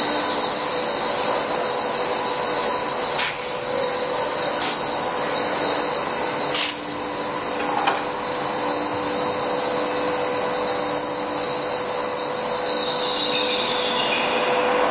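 Tailift TPR-1230H radial arm drill running: a steady high-pitched whine over a low hum, with a few clicks in the first seven seconds. Near the end the whine drops slightly in pitch and fades.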